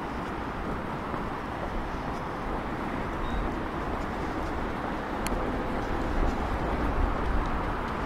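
Street ambience with steady traffic noise; a vehicle's low rumble grows louder over the last few seconds, and there is a single sharp click about five seconds in.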